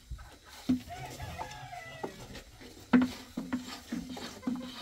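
Chickens clucking in short, repeated calls, with two sharp knocks, the second the loudest sound.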